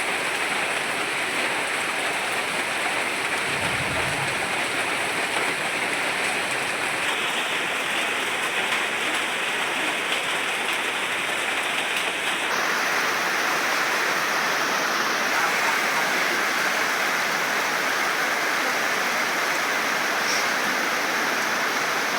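Steady heavy rain falling, a dense even hiss of drops. A brief low rumble comes about four seconds in, and the rain turns a little brighter and louder about twelve seconds in.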